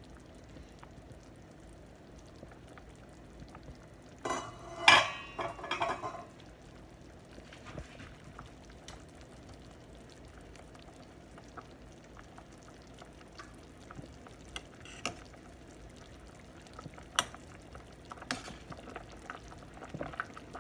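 Stainless steel stockpot of beef-bone soup bubbling faintly on the stove. About four seconds in there is a loud clatter of metal against the pot, and later a few scattered clinks as a metal spoon is put into the pot.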